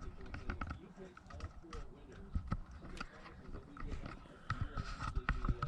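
Scattered light clicks and knocks of camper shock hardware and bracket being handled and fitted by hand, at an irregular pace.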